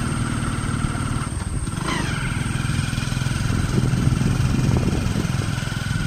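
Motorcycle engine running steadily while riding along the road.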